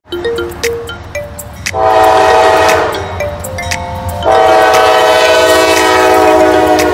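Freight locomotive's multi-note air horn sounding at a grade crossing: a short blast about two seconds in, then a longer blast from about four seconds in, over the rumble of the approaching train.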